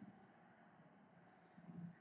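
Near silence: quiet room tone inside a car cabin, with a faint, short, low sound near the end.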